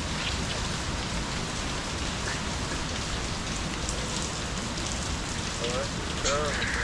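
Heavy rain falling steadily, an even hiss of drops on the ground and surfaces.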